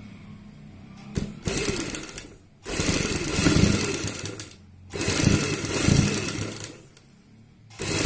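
Sewing machine stitching a second strip of piping onto the first along the existing seam, in four short runs that start and stop: one brief, two of about two seconds each, and another starting near the end.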